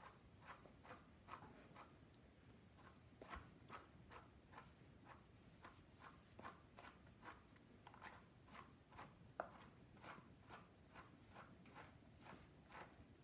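Faint scratchy strokes of a slicker brush's wire pins drawn through a long-haired dog's coat, repeated in quick even strokes a little over two a second.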